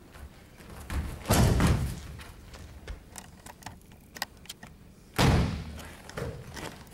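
Two heavy thuds of a body hitting a padded wrestling mat, about four seconds apart, the first as a partner is thrown down; faint taps and scuffs between them.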